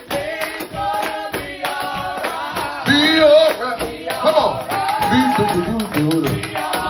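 Gospel music with sung vocal lines over a band and steady percussion.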